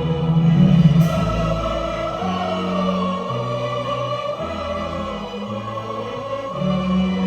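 Large choir singing sustained chords with orchestral accompaniment, the bass line moving from note to note about once a second.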